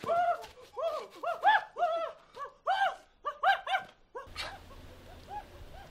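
A rapid, excited run of short ape-like hoots from several voices, each call rising and falling in pitch. It breaks off about four seconds in, leaving only a few faint hoots over a low steady hum.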